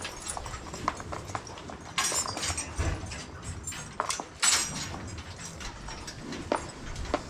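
Dairy cows moving about at the headlocks on a concrete barn floor: scattered irregular knocks and clatter, with a couple of louder scuffing bursts.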